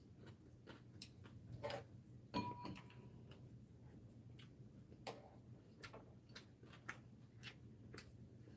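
Quiet eating sounds: scattered soft clicks of metal chopsticks and small mouth sounds, with one brief ringing clink of chopsticks against a ceramic dish about two and a half seconds in.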